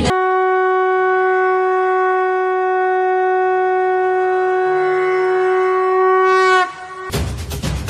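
Conch shell blown in one long steady note that sags slightly in pitch as it dies away. Drums come in just after it ends.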